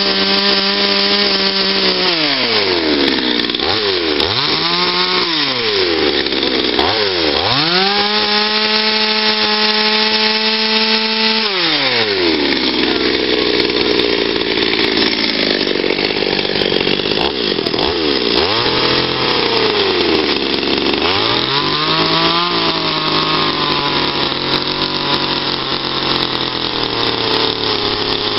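Petrol two-stroke chainsaw carving into a wooden log. It runs at full throttle, drops toward idle about two seconds in, and is blipped up and down several times. It holds high revs again for a few seconds, then runs at a lower, uneven pitch with more cutting noise in the second half as the chain works the wood.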